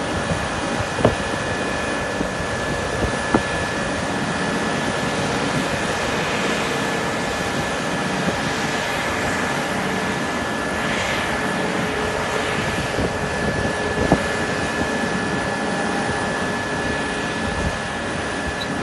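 Jet airliner's engines running at taxi power: a steady whine with a fixed high tone over a broad rushing noise, with a few sharp ticks.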